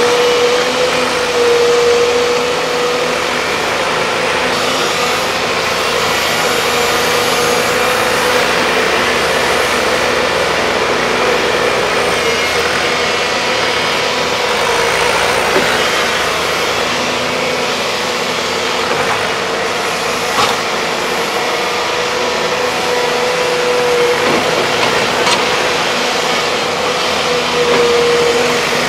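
Volvo excavators' diesel engines running steadily, with a sustained whine that swells now and then and a few faint knocks.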